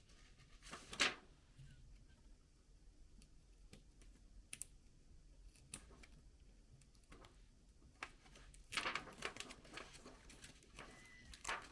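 Faint scattered clicks and scratchy rustling of hands and small tools working on a laptop's plastic case, with a sharper click about a second in and a busier spell of scraping and clicking near the end.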